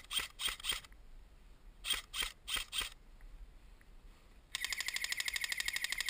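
Airsoft electric guns firing: two quick strings of four shots, then from about four and a half seconds in a long burst of rapid full-auto fire with a steady whine under it.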